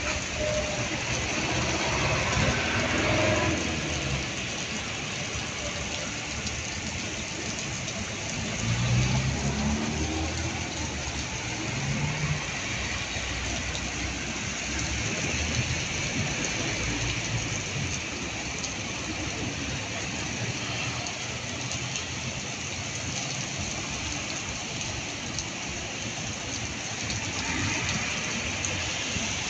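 Heavy rain falling steadily on a wet paved street. Vehicles pass on the wet road, with a low engine rumble that rises in pitch, loudest about nine seconds in.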